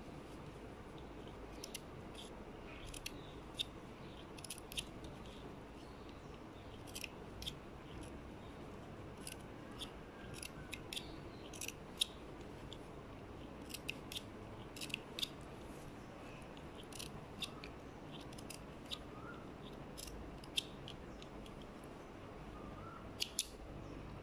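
Scissors snipping cloth in a run of short, irregular snips, trimming the seam allowance of a dark blue armhole facing so that it turns out flat without puckering.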